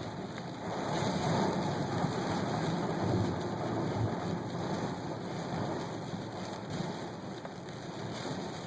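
Steady rain and wind in a thunderstorm, a little louder from about one to three seconds in.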